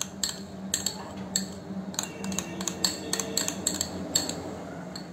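Metal spoon clinking and scraping against a glass bowl while scooping soft cream out into a steel jar: a run of quick, irregular taps and clicks.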